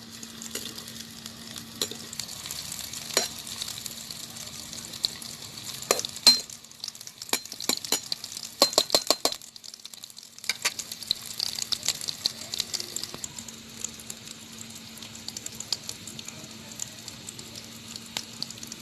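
Chopped onion and red chillies sizzling and crackling in hot oil in a kadhai, a steady hiss spotted with pops. In the middle they are stirred, giving a quick run of sharp clicks against the pan.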